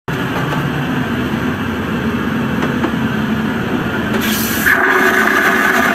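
Steady aircraft cabin rumble in an airplane lavatory. About four seconds in, a vacuum toilet flush starts with a sharp hiss, then a loud rushing whoosh that holds to the end.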